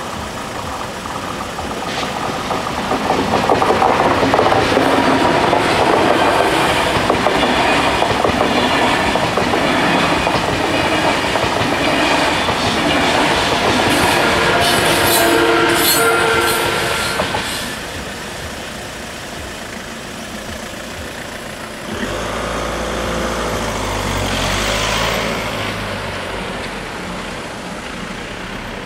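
Double-deck TGV Duplex high-speed train passing over a level crossing: a loud, steady rush and clatter of wheels on rail that builds over the first few seconds, holds for about fourteen seconds, then falls away. Some seconds after it has gone, a car engine close by starts suddenly and runs.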